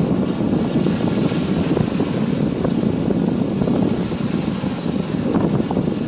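Steady wind rumble buffeting the microphone, mixed with small waves washing onto the beach.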